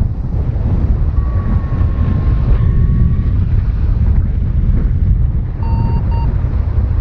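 Wind rushing hard over the microphone of a paraglider in flight, with a paragliding variometer sounding a steady tone for about two seconds and then two short beeps near the end.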